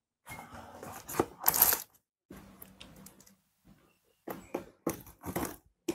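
Scissors cutting into the tape and cardboard of a shipping box: irregular snips, scrapes and tearing in two short spells with a quiet pause between them.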